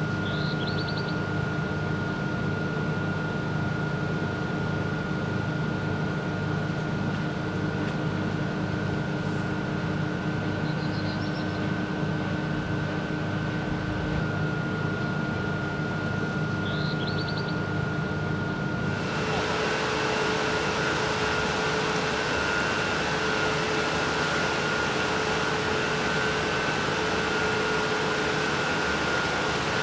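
Steady hum of the hydropower plant's electrical machinery at the transformer room, with a few fixed tones and three short high chirps. About two-thirds of the way through it changes abruptly to a louder, even rushing of turbine discharge water pouring out of the powerhouse tailrace, with a machine tone underneath.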